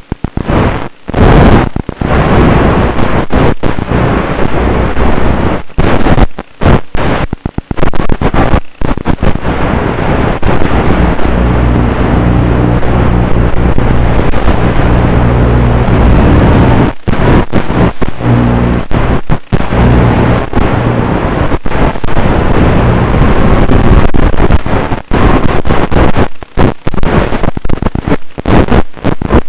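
Blade Torrent FPV quadcopter in flight, its motors and rushing air heard as a loud, hissing rush through the onboard video link, which keeps cutting out for split seconds. From about 12 s to 20 s a low steady hum of the motors comes up under the rush.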